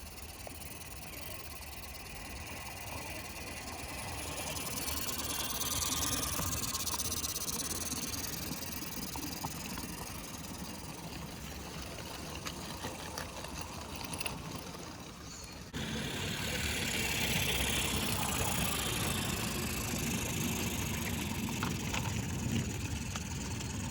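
Mamod Brunel live steam locomotive running, a steady hiss of steam that swells for a few seconds and fades. About sixteen seconds in the sound jumps abruptly louder and fuller.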